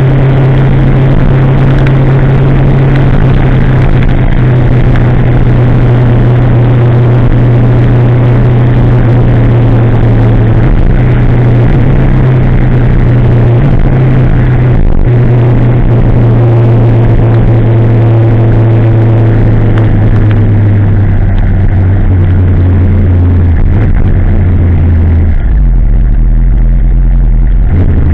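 2016 Kawasaki ZX-10R's inline-four engine through a de-catted aftermarket exhaust, running at steady cruising revs under a hiss of wet road and rain. About three-quarters of the way through, the revs sink and then drop to a low drone as the bike slows, and they rise again right at the end.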